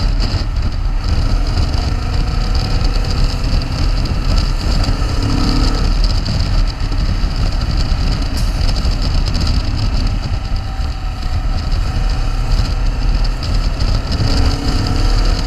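Motorcycle riding at freeway speed: a steady rush of wind buffeting the microphone over road noise, with the engine's note rising and falling faintly a few times.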